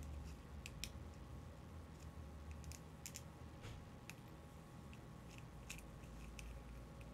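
Faint, irregular clicks and scratches of a small pick chipping hardened potting compound out of the metal base of an LED filament bulb, breaking up the compound that fills the driver.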